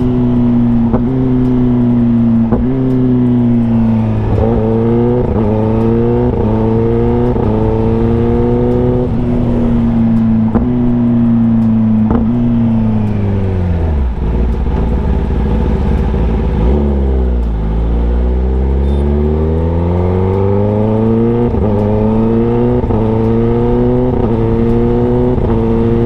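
Kawasaki ZX10R inline-four through an SC Project CRT full-system exhaust, accelerating and shifting up through several gears. About halfway it falls back to a low rumble as the bike slows, then pulls away again, the revs climbing and stepping at each upshift.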